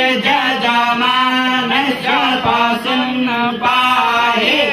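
Male voices chanting Hindu mantras together, held mostly on one reciting pitch with small rises and falls between phrases.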